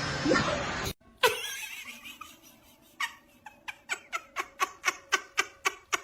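Laughter: a run of short, rhythmic 'ha-ha' bursts, about four a second, speeding up and getting louder over the last three seconds.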